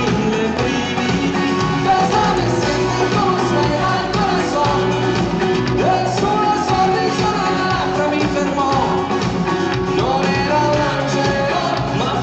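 Band playing a pop song live, with a singing voice over it.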